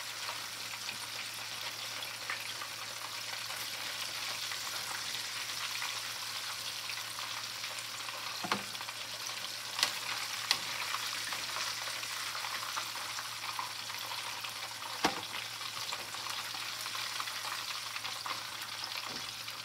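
Chicken deep-frying in hot oil in a wire fry basket: a steady sizzling hiss. A few sharp clicks come from metal tongs knocking against the basket.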